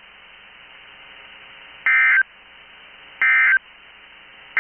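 NOAA Weather Radio SAME end-of-message code: three short, identical bursts of digital data tones about 1.3 s apart, over a faint steady radio hiss. They mark the end of the Required Weekly Test broadcast.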